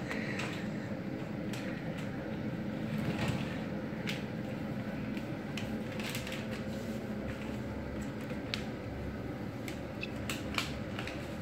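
Scattered light clicks and knocks of kitchen utensils being handled over a steady low hum.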